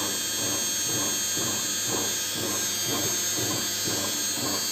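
Bosch washing machine's brushed universal motor, fitted with new carbon brushes and a polished commutator, spinning the drum at about 800 rpm. It makes a steady whir with a high whine and a regular pulse about twice a second.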